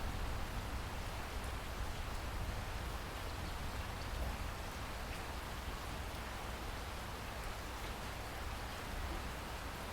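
Steady rainfall, an even hiss of rain with a constant low rumble underneath.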